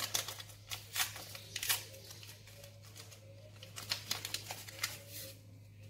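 A paper sachet of vanilla sugar rustling and clicking as it is opened and emptied, a run of light crackles busiest in the first two seconds.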